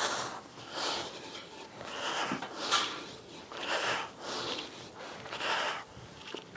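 A man breathing hard and rhythmically through a set of weighted pull-ups, one sharp breath about every second.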